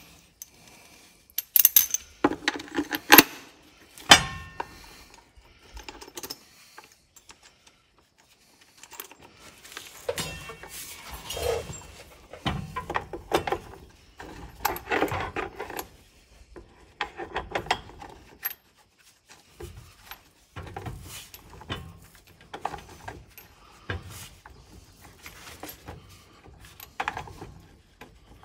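Scattered metallic clinks, taps and rattles as the gauge wheel, its mounting bolt and shims are handled off and back onto a John Deere drill's disc opener. The sharpest, loudest clicks come about two to four seconds in.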